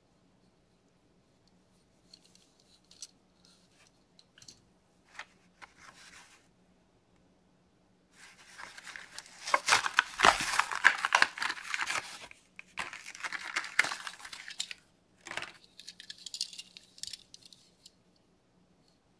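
Hot Wheels cardboard blister card being torn open by hand. There is light rustling and a few clicks at first, then a loud run of ripping cardboard and crackling packaging lasting several seconds, and a few shorter tears near the end.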